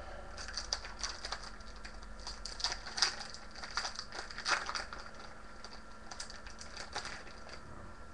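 Trading card packs and cards being handled: a run of crinkles, rustles and light clicks, busiest around three to five seconds in and thinning out near the end.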